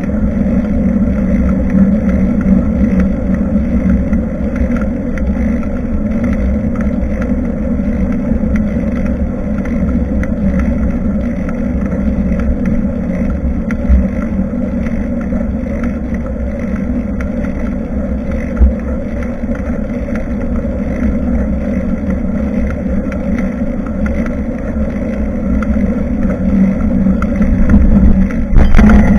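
Steady rumble of wind and road noise on a bicycle-mounted action camera while riding, with two short thumps partway through and a louder rush near the end.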